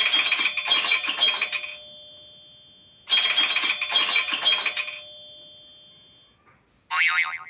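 iPhone 7 Plus ringtone playing through the phone's speaker: a chiming phrase of three quick clusters of notes with a ringing tail, repeated about three seconds later. Near the end a different tone starts, short chime bursts under a second apart.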